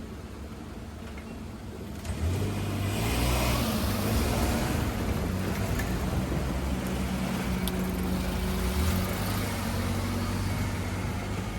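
A vehicle passing close by: a steady low hum that swells about two seconds in, with a rushing noise that is strongest soon after and then eases to a steady run.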